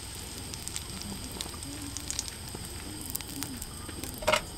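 Butter crackling and sizzling faintly in a frying pan under a slice of bread that is toasting in it. A brief, louder clatter comes just before the end as the bread is lifted and turned in the pan.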